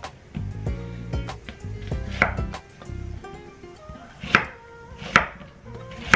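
Chef's knife chopping an onion on a wooden cutting board: uneven knife strikes cutting through the onion onto the board, a few of them sharper and louder, about two, four and five seconds in.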